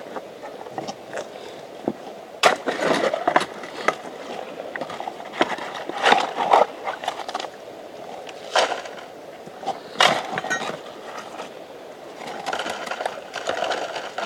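Steel shovel digging into stony gravel, the blade scraping and clinking against stones in repeated strokes every second or two, with a longer rasping scrape near the end.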